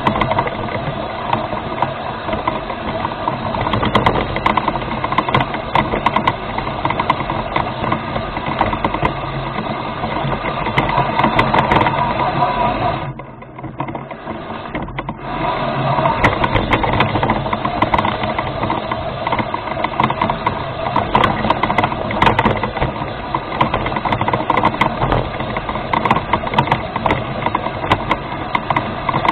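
Electric drive motors and gears of a remote-control rover running steadily. The sound drops away for about two seconds about halfway through, then starts again.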